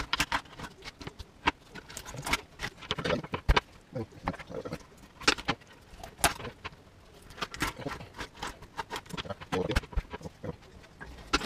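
A kitchen knife cutting white bass fillets on a wooden cutting board: irregular taps and knocks of the blade striking the board.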